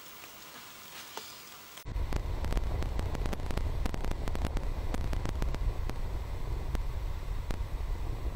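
Faint, quiet forest ambience with a few light clicks, then about two seconds in a sudden switch to a trail camera's own recording: a loud, steady low rumble of wind on its microphone, peppered with many sharp clicks and crackles.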